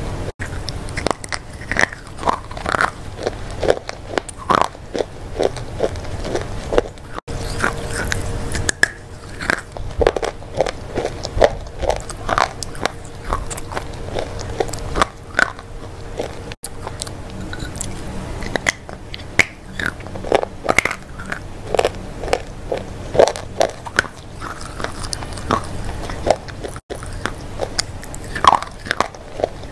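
Close-miked biting and chewing of a Milkybar white chocolate bar: irregular crisp crunches, several a second at times, between quieter chewing.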